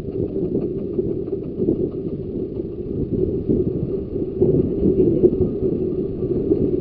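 15-inch-gauge Ravenglass and Eskdale Railway train running along the line, a steady rumble of wheels on track.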